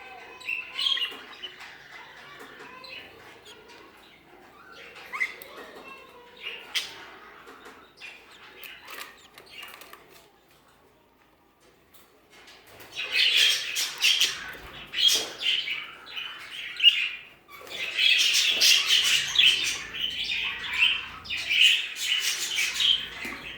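Budgerigars chirping and squawking, scattered at first, with a short lull about ten seconds in, then louder, near-continuous chattering and squawks for the last ten seconds.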